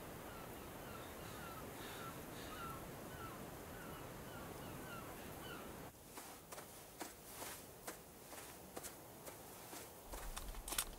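Faint outdoor ambience with a bird calling in short, falling chirps about twice a second. The calls stop about six seconds in and give way to scattered soft clicks. Near the end come sharper plastic clicks as a portable cassette player is handled.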